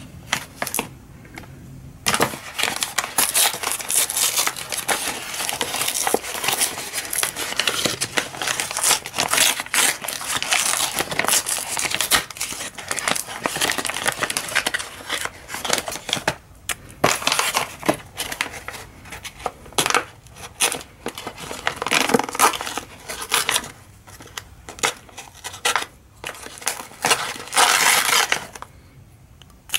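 Kraft-paper mailing envelope being crinkled and torn open by hand: a run of paper crackling, crumpling and ripping that starts about two seconds in, with short pauses.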